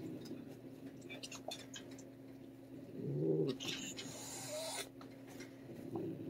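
A fierce feral cat gives a short low growl about three seconds in, then hisses for about a second with its mouth wide open, a defensive warning at the feather toy being waved at it. Small clicks and rustles come before and after.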